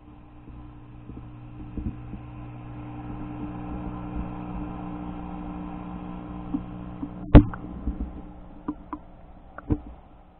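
A steady low hum with several pitches, heard through an underwater camera, cuts off about seven seconds in with one loud, sharp knock. A few softer knocks follow near the end.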